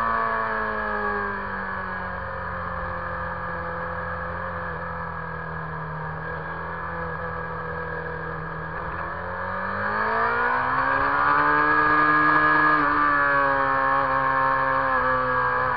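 Motorcycle engine running on the road. Its pitch drops over the first couple of seconds, holds lower and a little quieter for several seconds, then climbs and gets louder about ten seconds in and stays up.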